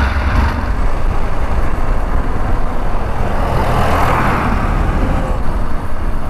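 Hero Xpulse 200 motorcycle's single-cylinder engine running as the bike is ridden along the road, heard under a steady low rumble of road and wind noise.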